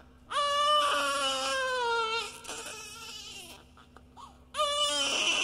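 Baby crying in two long wails, the first starting just after the beginning and trailing off after about two seconds, the second breaking out loudly about four and a half seconds in.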